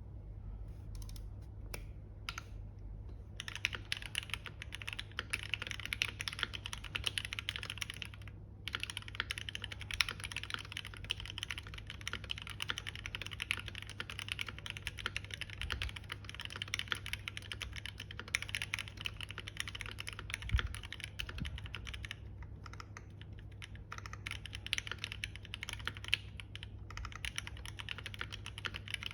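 Typing on a Squid60 (Bacca60) 60% keyboard with linear Gateron Ink V2 switches on a brass plate: a few separate key presses at first, then a fast, continuous clatter of keystrokes with a brief pause about eight seconds in.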